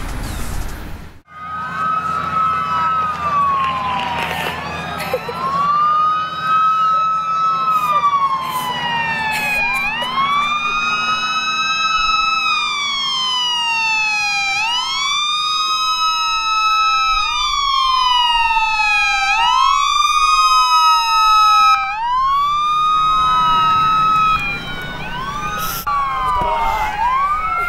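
Police car sirens wailing, with two or more sirens overlapping, each sweeping slowly up and down in pitch. They start about a second in, after a short break in the sound.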